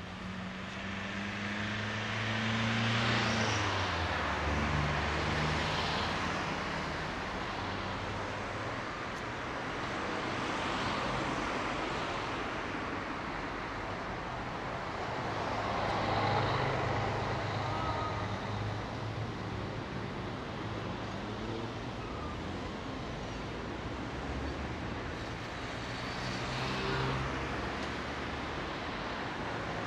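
Road traffic passing, cars swelling up and fading away every few seconds over a steady engine hum.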